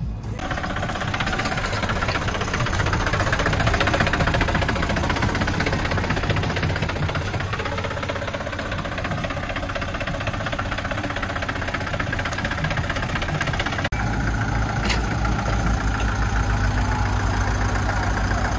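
Diesel engine of a Hoa Mai light dump truck running steadily at close range, with a brief dip about fourteen seconds in, after which the low rumble is heavier.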